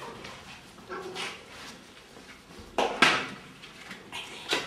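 A crowd of hungry cats meowing now and then while waiting for food, with a few sharp knocks, the loudest about three seconds in, as food bowls are brought down to them.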